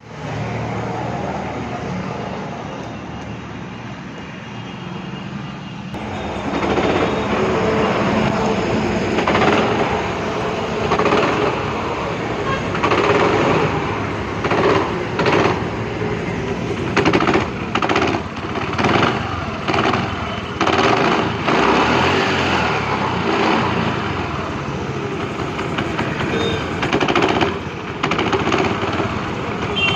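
TVS Jupiter scooter engine running with a loud rattling, knocking vibration, steadier for the first six seconds and then louder with rapid, uneven knocks. The noise is the sign of the vibration and sound fault that the owner calls severe.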